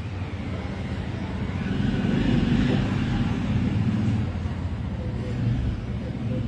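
Road traffic: a motor vehicle's low engine rumble, growing louder about two seconds in and easing off again.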